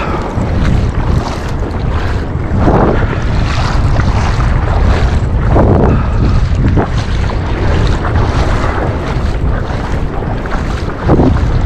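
Strong wind buffeting the microphone, a loud steady rumble with a few brief louder gusts.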